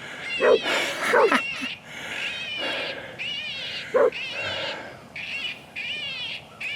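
A long string of short, high-pitched, wavering animal distress cries, with a few sharper lower yelps among them.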